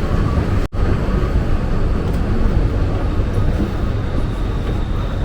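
Steady rumble of a metro train running, broken by a sudden brief dropout just under a second in.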